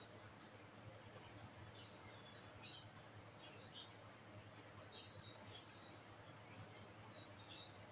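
Near silence with faint, scattered chirping of small birds in the background over a low steady hum.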